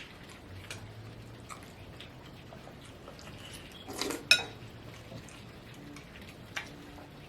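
Metal spoon clinking and scraping against a bowl during eating: a few light clicks and one sharp, ringing clink about four seconds in.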